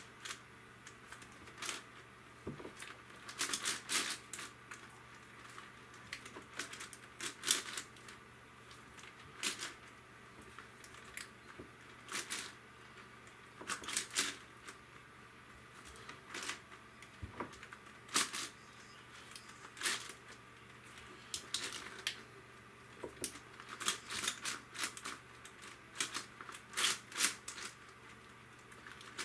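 Yuxin Huanglong 17x17 magnetic cube's layers being turned by hand: irregular clusters of clicks and clacks every second or two as each move of an algorithm is made.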